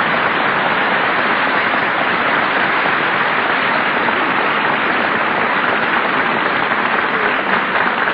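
Studio audience applauding, a steady, even clatter.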